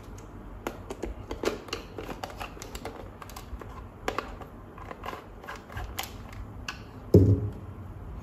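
Irregular small plastic clicks and taps as a handheld digital multimeter's case and holster are handled and fitted together, with one louder, short, low sound about seven seconds in.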